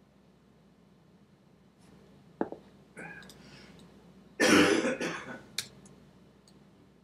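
A person clears his throat with one loud burst a little past halfway, the loudest sound here. It comes after a sharp click and some softer breathy noise, and is followed by another short click.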